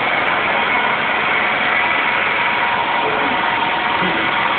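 Steady, loud mechanical drone with faint unchanging hum tones, like a motor running continuously.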